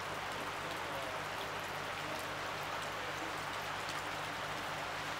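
Shallow river water rushing steadily over rocks, with a faint low hum underneath.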